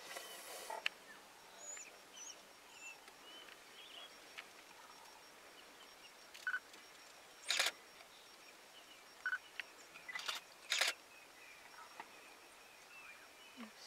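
African wild dogs twittering at a kill: faint, high, bird-like chirps come again and again. A few short, louder bursts of noise stand out about seven and a half seconds in and twice between ten and eleven seconds.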